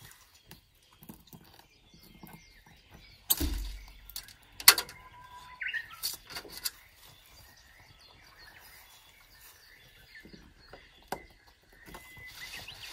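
Scattered knocks and clicks of metal U-shaped garden staples being pulled out of the ground and handled, the two loudest about three and a half and four and a half seconds in. Small birds chirp throughout.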